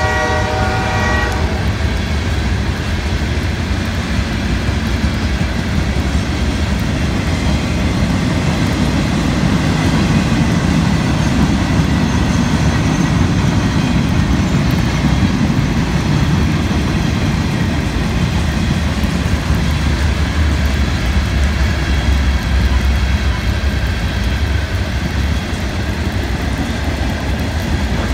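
A locomotive horn ends about a second in. After it, a long CSX freight train of hoppers, gondolas and tank cars rolls steadily past, its wheels rumbling and clattering on the rails.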